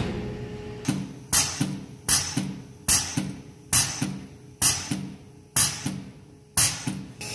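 Air-driven hydraulic pump unit stroking as it builds pressure for the hydraulic tightening tool. Each stroke is a sharp clack with a hiss of exhausting air, about one a second, the strokes coming slightly further apart as the pressure rises.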